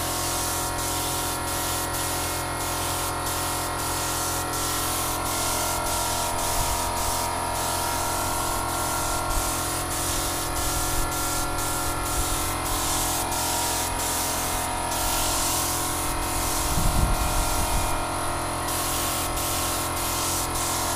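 Gravity-feed paint spray gun hissing steadily as compressed air sprays red paint onto a motorcycle fuel tank, with a few brief dips as the trigger eases between passes.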